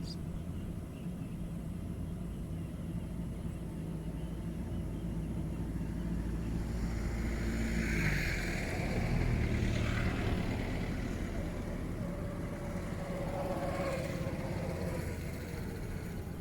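Rice combine harvester's engine running steadily. About halfway through its pitch drops, and a louder rushing noise swells for a few seconds before easing off.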